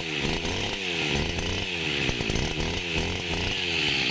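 Small two-stroke brush-cutter engine (Robin-type 411) running on oil-mixed fuel, its pitch rising and falling repeatedly.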